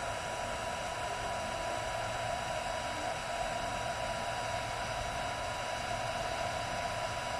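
Portable inverter welding machine switched on and running, its cooling fan blowing with an even rushing sound and a few thin steady whines on top.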